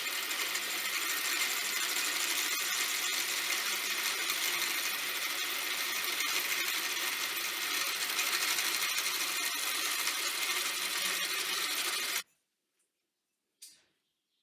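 Power tool running steadily under load, shaping a 3 mm aluminium shim into a wedge, then stopping abruptly about twelve seconds in; a single short click follows.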